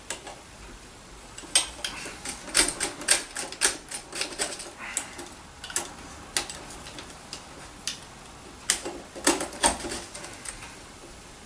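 Hoover Senior upright vacuum cleaner parts being handled and fitted: a run of sharp clicks, knocks and rattles in two clusters, a quieter gap between them.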